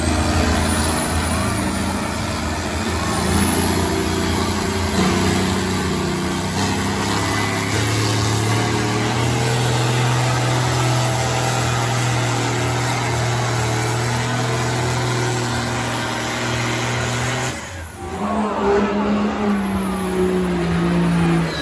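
Orange farm tractor's diesel engine working hard under full load as it drags a pulling sled; its pitch steps up about a third of the way in and then holds steady. A few seconds before the end the sound cuts to a pickup truck's engine pulling the sled, its pitch falling.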